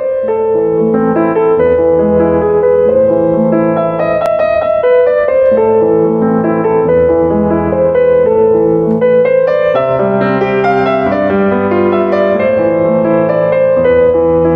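Intro music played on piano: a run of single notes over held low bass notes, continuous and at a steady level.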